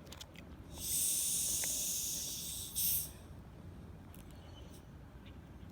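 Hiss of carbonation gas escaping from a soda bottle as its cap is loosened, lasting about two seconds, then a short, louder rush of gas.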